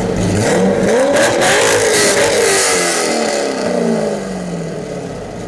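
Modified Chevrolet Corvette V8 accelerating hard, its engine note climbing for about a second, then falling steadily over the next few seconds as the car pulls away.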